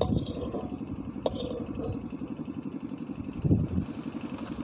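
A steady rapid low engine-like throb, with a few light scrapes and a clink of a metal utensil in a cooking pan.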